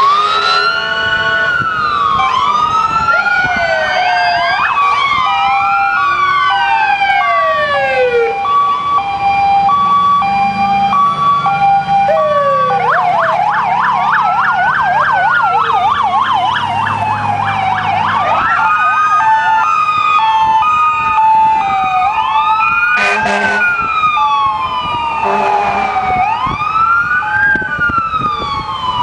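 Several fire truck and police sirens sounding at once in overlapping rising and falling wails. A fast yelp comes in about a third of the way through, alongside a steady two-note hi-lo tone, and two short horn blasts sound near the end.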